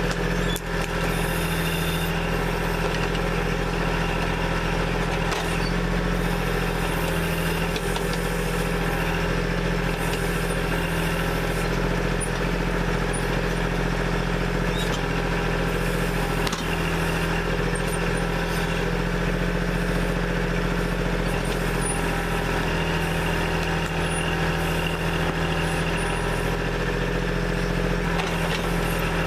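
Kubota backhoe's diesel engine running steadily as it works the trench, with a few brief knocks along the way.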